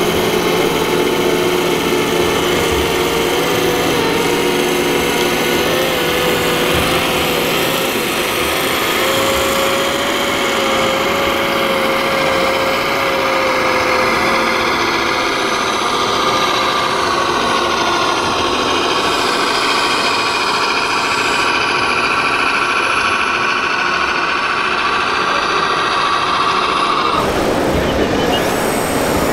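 1/14-scale radio-controlled trucks running: a steady mechanical whine made of several held tones, one of them slowly rising in pitch through the second half. The sound changes abruptly near the end.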